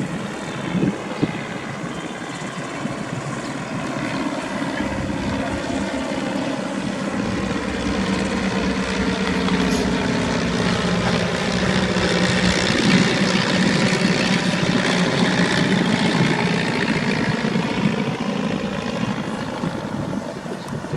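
Propeller aircraft engine droning as the plane flies by, growing louder to a peak around the middle of the pass and easing off near the end, its pitch sliding slowly.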